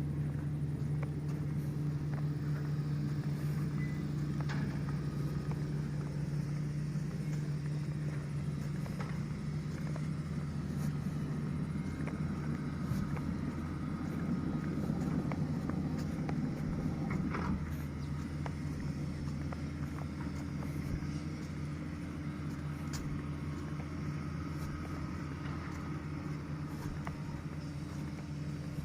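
Heavy earthmoving machine's diesel engine running steadily under working load. It works harder for a stretch midway, then eases a little, with scattered faint clanks.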